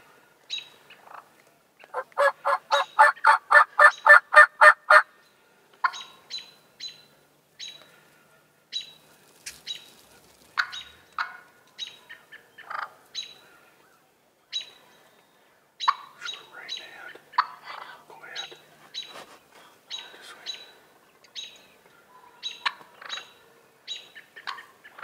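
Eastern wild turkey gobbler gobbling: a loud, fast rattling run of notes about two seconds in, lasting some three seconds. Short, sharp calls follow every half second to a second.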